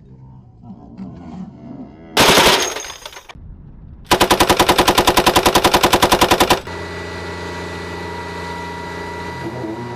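Helicopter-mounted Gatling gun firing: a short burst about two seconds in, then a longer rapid burst of about ten rounds a second lasting about two and a half seconds. A steady hum follows the firing.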